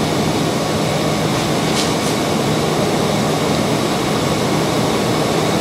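Steady mechanical drone of a hydraulic press's power unit running, with a low steady hum underneath and no change in level.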